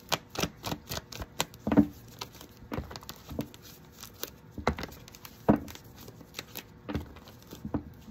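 A deck of tarot cards being shuffled by hand: irregular snaps and clicks of card edges, a quick flurry at first, then slower scattered ones.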